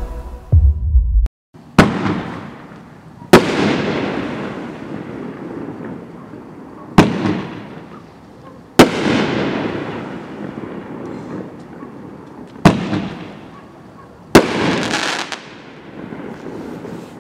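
A short music sting ends about a second in. Then a Dominator Devil's Fury 9-shot 500-gram consumer fireworks cake fires aerial shots: six sharp bangs at uneven intervals, each trailing off over a second or two.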